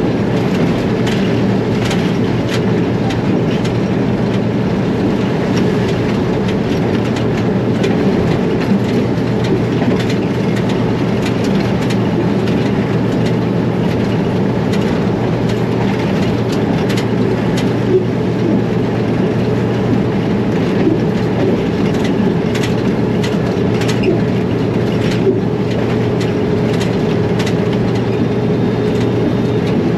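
ALCO diesel locomotive heard from inside its cab, its engine running steadily under way, with scattered short clicks and knocks over the drone.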